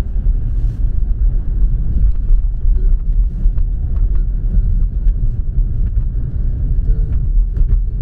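Steady low rumble of a car driving along at road speed, heard from inside the cabin: engine and tyre noise.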